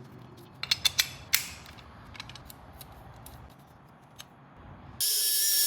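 Sharp metallic clicks and taps from paintless dent repair work on a motorcycle gas tank, with a cluster of ringing clicks about a second in. Near the end, a sudden loud, steady high-pitched hiss with ringing tones cuts in.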